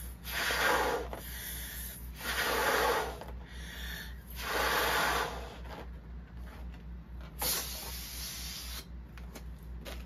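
A red latex balloon being blown up by mouth: three long breaths pushed into it, about a second each, with short pauses between. After that, softer rustling of latex as deflated balloons are handled, with one sharp click.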